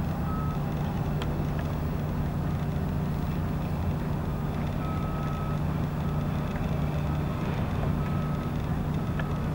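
Heavy construction machinery: a steady low diesel engine drone with a reversing alarm beeping in short spells, pausing for a few seconds and starting again about halfway through.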